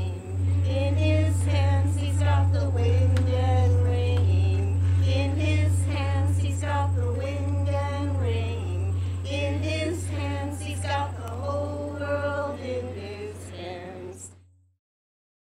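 Women's voices singing a slow melody over a steady low hum, cutting off abruptly near the end.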